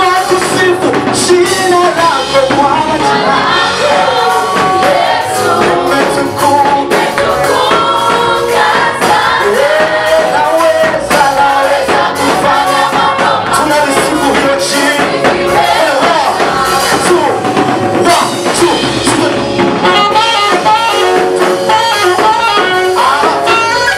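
Upbeat gospel praise music from a live church band, loud and continuous: a pitched lead melody over a steady drum and percussion beat.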